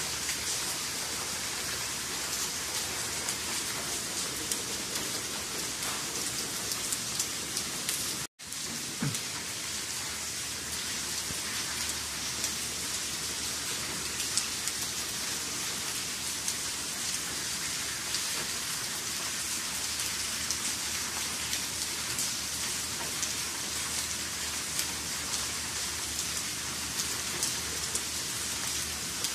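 Steady rain falling on wet paved ground and puddles: a continuous hiss with many small drop ticks. The sound cuts out for an instant about eight seconds in.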